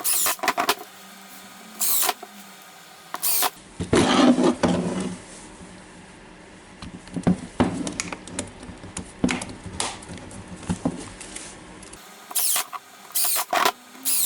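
Scattered sharp clicks, scrapes and rustles of hands working plastic parts and wiring inside an opened cordless drill, with a denser cluster about four seconds in.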